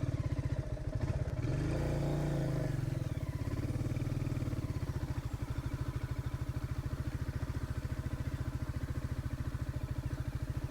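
Motorcycle engine running under way, with revs rising and falling about one to three seconds in, then running steadily.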